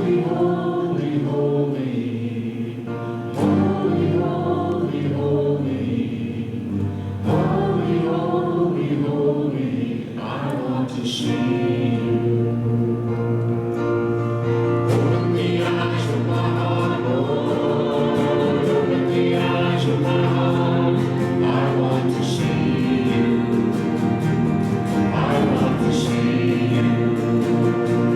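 A group of voices singing a hymn together in long held notes, the melody moving from note to note.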